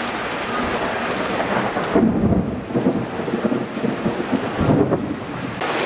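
Steady rain falling, and about two seconds in a long rolling rumble of thunder that swells twice and dies away after about three and a half seconds.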